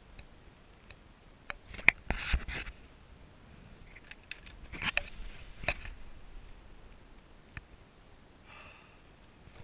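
Handling noises in a small room: a few sharp clicks and a short rustling scrape as curtains are drawn back and a window is opened, with faint rubbing near the end.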